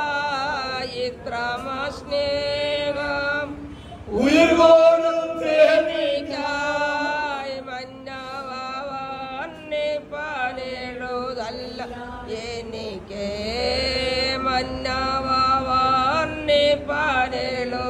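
A single voice singing a slow hymn-like melody in long held notes, with a louder note sliding up about four seconds in.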